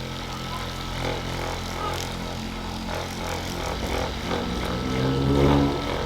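Ekrin B37 handheld percussion massager running, a steady motor buzz as it works into the shoulder muscles. It swells a little and rises slightly in pitch near the end.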